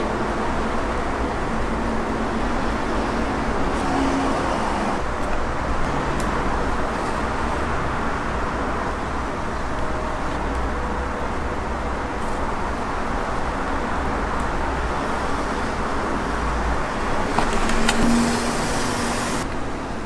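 Steady background noise, a low rumble with a hiss over it, with a short tap near the end.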